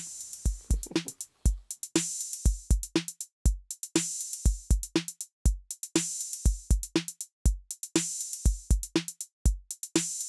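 Background music with a steady electronic drum beat: low kick thuds and sharp high hits in a pattern that repeats about every two seconds.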